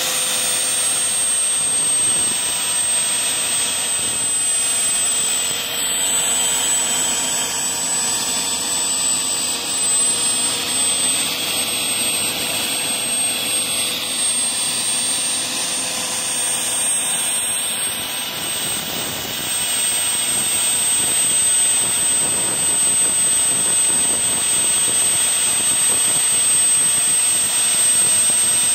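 A small gas turbine engine running with a steady high-pitched whine over a broad rushing noise. Its pitch dips slightly about a second in and comes back up about sixteen seconds in.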